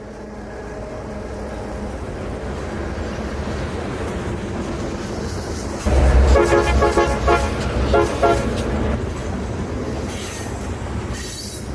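Diesel locomotive engine running with a low rumble that builds, then from about halfway a locomotive horn sounding a chord in a string of short, choppy blasts for a couple of seconds.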